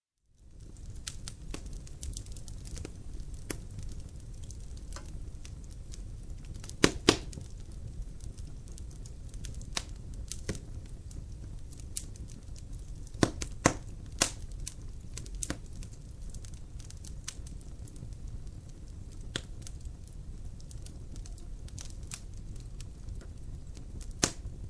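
Wood fire crackling in a fireplace: a steady low rumble of flame with scattered sharp pops and snaps, the loudest a pair about seven seconds in and a cluster around thirteen to fourteen seconds. The sound comes in just after the start, following a moment of silence.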